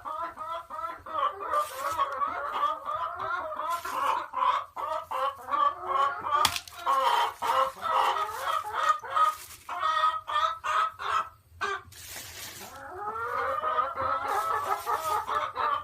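A flock of Barred Rock and ISA Red laying hens clucking and chattering, many short calls overlapping, with a brief lull about twelve seconds in.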